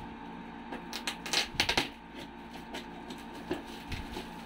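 Plastic shipping wrap on a parcel crackling and snipping as it is handled and cut with scissors, with a burst of loud crackles about a second and a half in, then a few lighter ticks.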